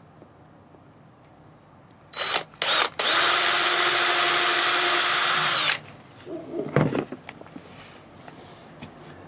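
Electric drill: two short trigger blips, then a steady whining run of about three seconds that winds down. A single knock follows about a second later.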